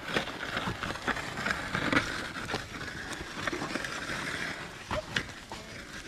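Buffalo-drawn wooden plough scraping and breaking through dry, lumpy soil, with irregular knocks and thuds.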